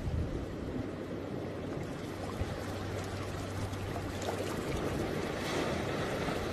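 Steady rushing noise of moving water at the shoreline, with a faint low steady hum joining about two and a half seconds in.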